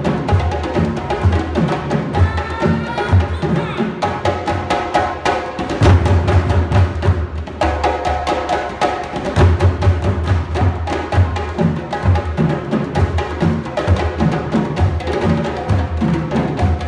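An ensemble of African hand drums, djembes among them, playing a fast, dense rhythm of sharp slaps and deep bass strokes.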